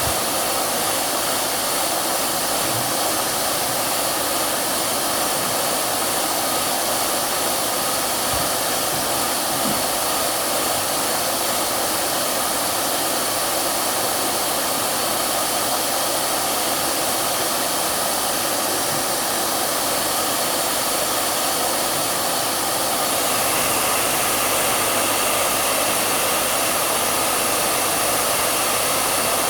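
Hair dryer running steadily as white noise: a constant rushing hiss with a faint whine in it. About 23 seconds in it gets slightly louder and the whine shifts a little higher.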